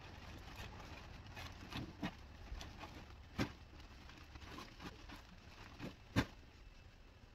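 Old roofing debris being handled and dropped into a black plastic trash bag: scattered knocks and clatter with plastic rustling. Two sharper knocks stand out, about three and a half seconds in and again about six seconds in.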